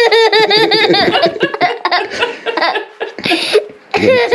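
A young child laughing hard: a fast, even run of high-pitched giggles, about seven a second, that breaks up after a second and a half into looser separate bursts of laughter.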